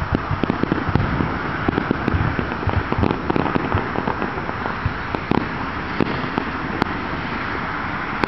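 Aerial fireworks shells bursting in quick succession, a dense run of booms and crackling pops that thins out in the second half to a few sharp cracks, over steady background noise.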